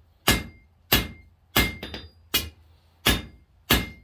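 Blacksmith's hand hammer striking red-hot half-inch square mild steel on an anvil, six evenly paced blows about one every 0.7 seconds, each with a short ring, as the taper is drawn out.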